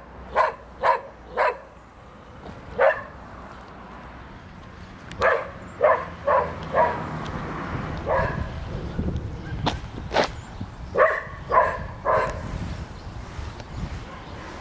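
A dog barking repeatedly: short barks in quick runs of three or four, with pauses of a few seconds between runs. A low rumble swells in the middle, with two sharp clicks.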